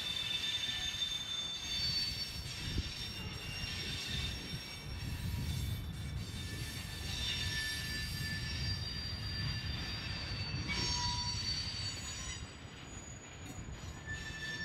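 A freight train of covered hopper cars rolls slowly past, its wheels rumbling steadily on the rails with thin, high wheel squeals that come and go, and a single knock about three seconds in.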